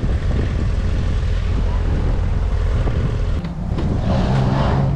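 Motorcycle engine running at low speed, with wind rumbling on the helmet-mounted microphone; in the last second or so the engine holds a steady low hum.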